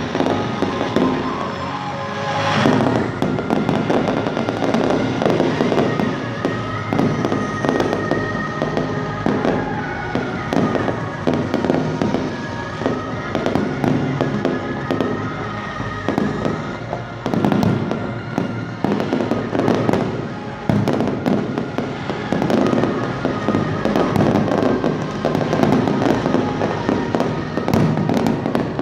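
Fireworks display: a continuous barrage of bangs and crackling bursts, with music playing underneath.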